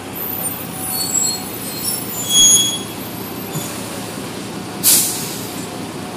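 Three-axle double-decker bus's brakes squealing in short high-pitched squeaks as it rolls to a stop, over the steady running of its engine. A short, sharp hiss of air brake air is let out about five seconds in, once the bus has halted.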